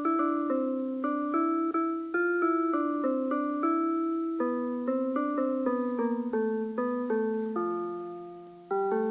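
Yamaha PortaSound PSS-50 portable keyboard playing a melody of single notes in an electric-piano-like voice, about two to three notes a second, each starting cleanly and fading. Near the end one note is held and dies away before a last short note.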